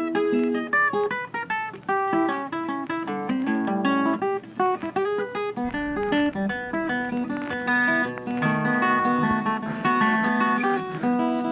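Background music: a guitar playing a fast run of plucked notes.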